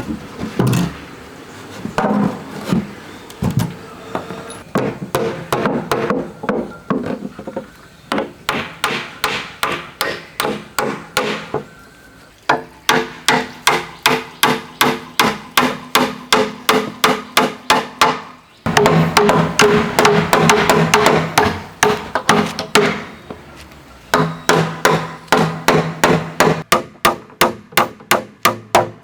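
A hammer striking wood in steady runs of blows, about three a second, with a short pause between runs. Each blow rings with a pitched tone.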